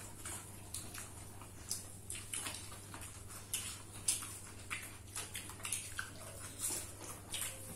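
Wet eating sounds: irregular chewing and lip-smacking clicks, several a second, over a steady low hum.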